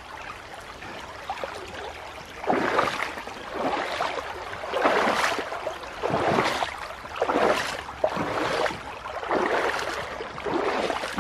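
Footsteps wading across a shallow stream ford, a splash of water with each step about once a second, over the steady sound of the running stream.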